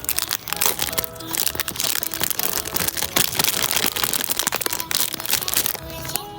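Gift packaging crinkling and crackling in rapid, irregular clicks as it is handled and opened, over background music.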